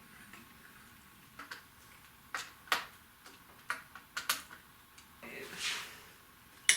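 Irregular light clicks and taps from small parts being handled during handlebar work, about a dozen in all, with a soft hiss a little after five seconds in.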